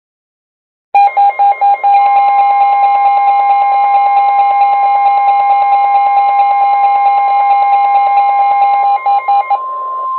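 NOAA Weather Radio 1050 Hz warning alarm tone, a steady pure tone, heralding a special marine warning. A louder buzzing alarm tone from the radio pulses on and off four times as it starts, holds, and pulses again before stopping, leaving the 1050 Hz tone alone for its last second.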